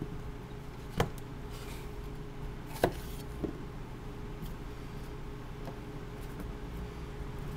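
Kitchen knife striking a cutting board twice, about a second in and near three seconds, with a lighter tap just after, while cutting up a red bell pepper. A steady low hum runs underneath.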